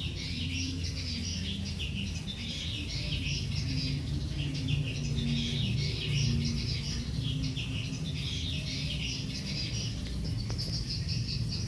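Birds chirping continuously in a dense chatter, over a steady low hum.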